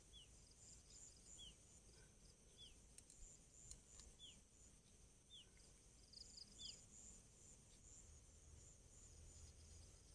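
Near silence with faint insects chirping steadily high up, and a short high falling call repeated six times, about one every 1.3 seconds.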